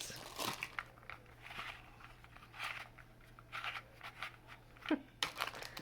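Faint, scattered crinkles and small clicks from handling fidget toys and their plastic packaging.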